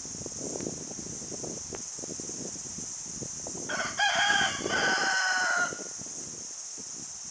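Rooster crowing once: a single cock-a-doodle-doo of about two seconds, starting a little past halfway through.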